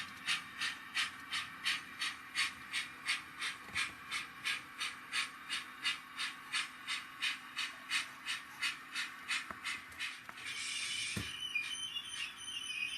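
Sound-fitted Rapido model of the locomotive Lion, its onboard speaker playing steady steam-locomotive chuffs, about three a second. About ten seconds in the chuffing stops, there is a single knock, and a higher warbling whistle begins.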